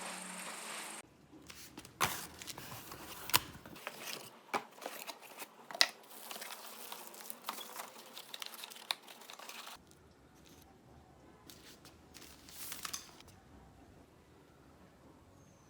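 Robot vacuum packaging being unboxed: plastic and cardboard crinkling and tearing, with scattered sharp clicks and knocks, dying down after about ten seconds apart from one more short rustle.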